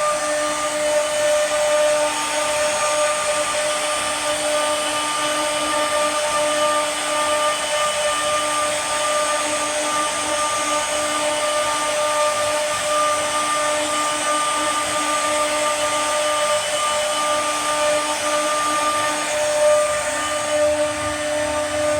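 CNC router spindle running steadily at speed, a constant whine.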